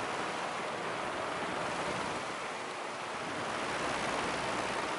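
Steady rushing of air from an electric desk fan on setting three blowing straight onto a compact camera's built-in microphone, which is covered by a homemade wind muffler cut from paint-roller fabric.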